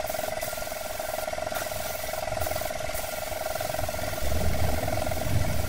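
Compressed-air spray gun hissing as primer is sprayed onto a steel truck body, over a steady motor hum. A low rumble rises about four seconds in.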